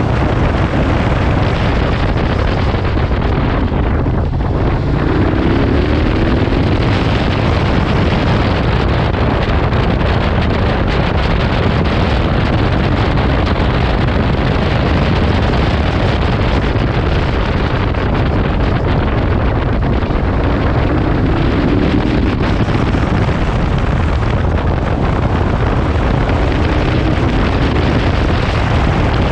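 Wind rushing over the microphone of a riding motorcycle, over the KTM 1290's V-twin engine running at cruising speed. The engine note rises briefly three times, about five seconds in, near twenty-one seconds and near the end.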